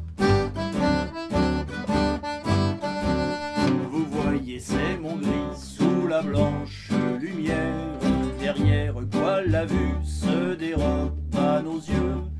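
A folk band playing an instrumental passage: acoustic guitars strumming a steady rhythm over double bass notes, with a diatonic accordion.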